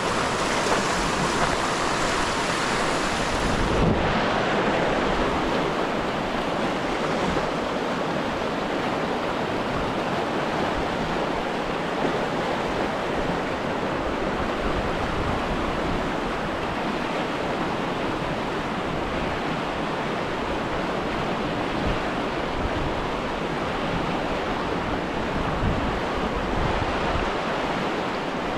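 Steady rushing noise of wind and surf, with wind buffeting the microphone.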